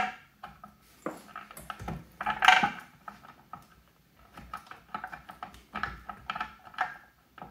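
Small metallic clicks, ticks and scrapes as a screw is worked by hand into a wheelchair motor's metal mounting bracket, against the plastic fender, with a louder clatter about two and a half seconds in.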